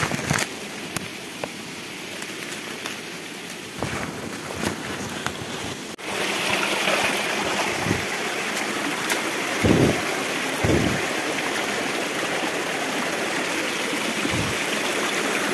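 A small forest stream running steadily over rock, starting suddenly about six seconds in after a quieter stretch of faint rustling and ticks. A couple of dull knocks come near the middle.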